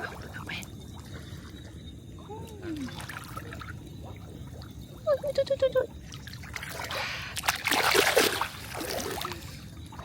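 Water splashing and dribbling as a fishing net is hauled out of the water, with a louder splash about seven to eight seconds in. A short run of about six quick pulses is heard just after five seconds.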